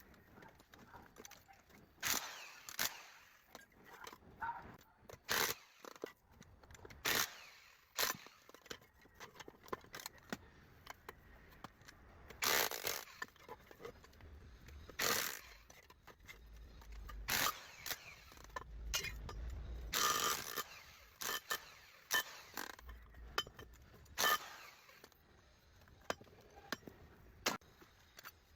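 Irregular metal knocks, clinks and scraping as an electric motor is dismantled by hand to get the copper windings out.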